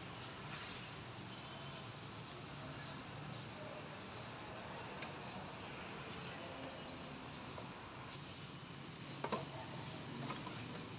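Faint steady background noise, with a few soft clicks and a couple of short knocks near the end.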